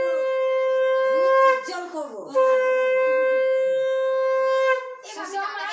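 Conch shell (shankha) blown in two long steady blasts, the first breaking off about a second and a half in and the second lasting about two and a half seconds, as is done at the blessing in a Bengali Bhai Phonta rite. Voices follow near the end.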